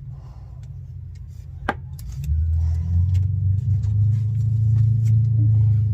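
A low engine-like drone that grows louder and steadier about two seconds in, with a single sharp click shortly before.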